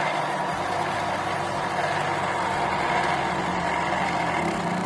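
A small electric bobbin winder's motor runs with a steady hum, spinning a sewing-machine bobbin as thread winds onto it.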